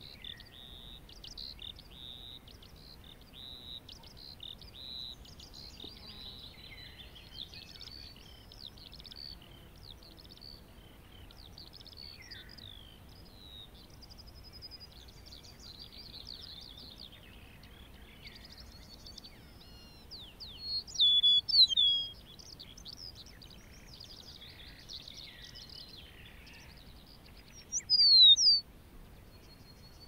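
Eurasian skylark song: a continuous, fast, high-pitched warbling twitter. Two louder bursts of sharp whistled notes stand out, one about two-thirds of the way in and one near the end.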